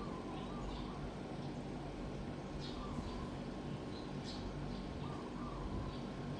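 SMC H56 56-inch industrial ceiling fan running steadily, a low motor hum under a constant rush of air. Scattered short, high chirps come and go over it.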